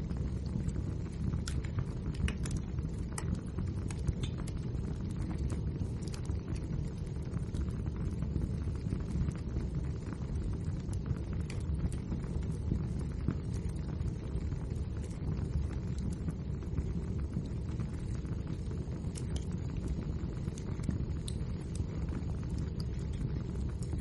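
Wood fire burning with a steady low rumble and scattered sharp crackles and pops of the burning logs.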